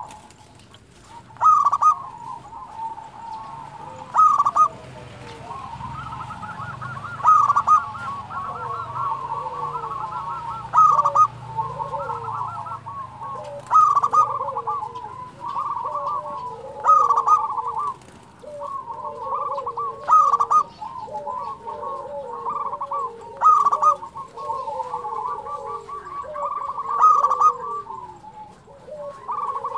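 Zebra dove (perkutut) cooing: a loud, rapid run of coo notes comes roughly every three seconds, with softer falling coos from other birds in between.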